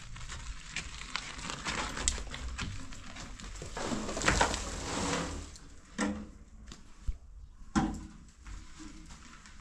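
Metal wheelbarrow rattling over gravel, then its load of soil and stones tipped out onto a dirt floor: a rush of pouring earth about four seconds in, followed by two sharp knocks.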